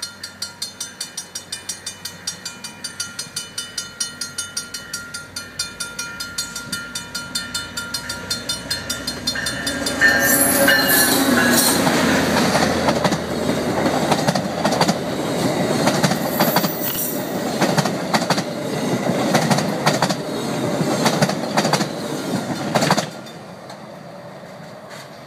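Level-crossing warning bell ringing in even strokes, about three a second. About ten seconds in, a VIA Rail F40PH-2 diesel locomotive and its passenger cars pass close at speed, with loud clatter of wheels over the rails that covers the bell. The train noise cuts off abruptly as the last car clears, about two seconds before the end.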